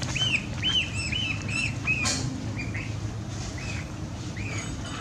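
Short high-pitched animal squeals, about three a second for the first two seconds, then a few more spaced out, with a brief rustling burst about two seconds in.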